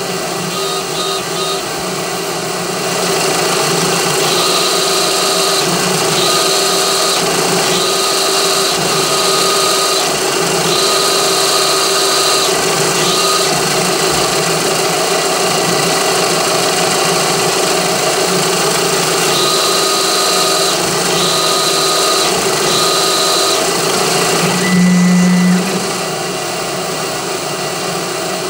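Mill-drill spindle running, spinning an abrasive rubber pad against a steel plate coated in abrasive paste to engine-turn rows of overlapping spots. A higher rubbing squeal comes and goes in spells of a second or so, with a brief louder burst near the end.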